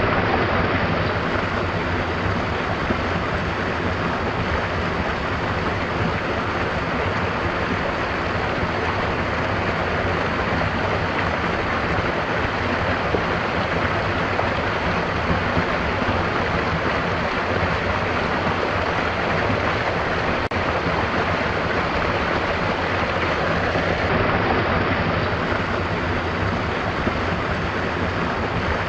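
Stream of water flowing with a steady, even rush.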